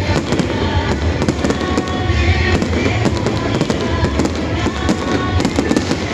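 Fireworks going off in a rapid string of sharp bangs and crackles, with music playing alongside.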